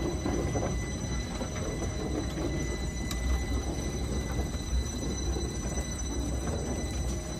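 Two-foot-gauge electric box motor car, driven by AC traction motors, rolling slowly past on its trucks: a steady low rumble of steel wheels on the rails, with a thin steady high whine over it.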